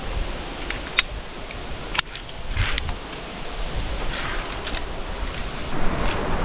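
Via ferrata gear clinking: metal carabiners and lanyard hardware knocking and jingling as the climber sets off up the route. There are two sharp clicks about one and two seconds in, then bursts of jingling.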